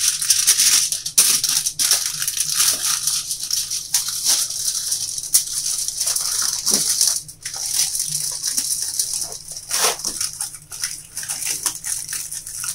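Aluminium foil crinkling and crackling as it is rolled tightly around a paper-wrapped roll by hand and its ends are twisted shut.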